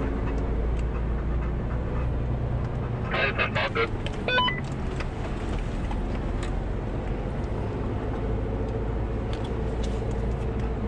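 Inside the cab of a 4x4 expedition truck driving a sandy desert track: steady low engine and road drone. A brief voice about three seconds in.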